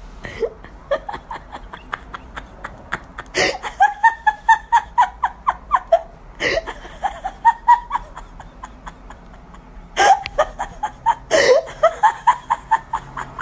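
A person laughing hard in about four bouts of quick, rhythmic pulses, each bout starting with a sharp gasp.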